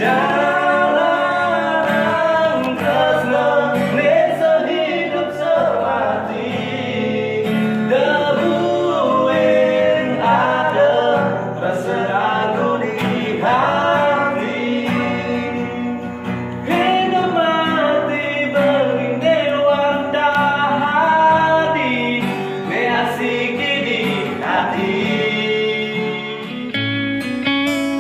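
A voice singing a melodic song over acoustic guitar accompaniment. About a second before the end the singing drops out, leaving the guitar strumming.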